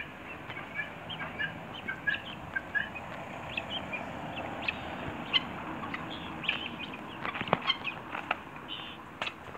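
Domestic helmeted guinea fowl foraging, giving many short, high chirping calls, with scattered sharp clicks and rustles that grow busier in the second half.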